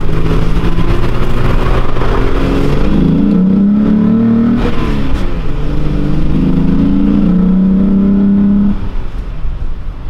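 VW VR6 engine with its long intake manifold, heard from inside the Golf Cabrio's cabin as it accelerates hard. The pitch climbs, drops at a gear change about five seconds in, and climbs again. Near the end the engine goes off the throttle and quietens.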